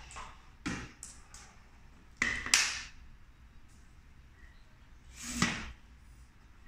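Plastic and aluminium parts of an INSE I5 stick vacuum handled on a tile floor, the vacuum not running: a few light clicks and knocks, then a louder clatter about two and a half seconds in as the stick is laid down. About five seconds in comes a short sliding, rubbing sound as the floor brush is worked on the tube.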